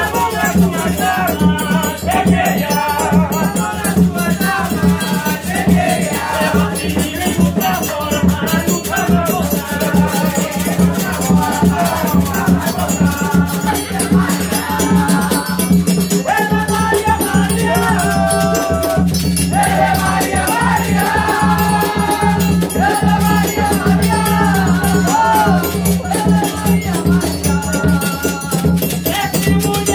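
Afro-Brazilian ritual song for Pomba Gira: voices singing a melody together over drums and shaken rattles that keep a steady, dense beat.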